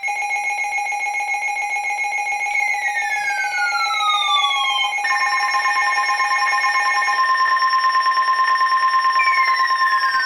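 Weather radio alert tones: several steady electronic alarm tones sound together, with a falling sweep twice. About halfway through a new steady tone near 1 kHz takes over, the weather radio warning alarm tone that comes before a warning message is read.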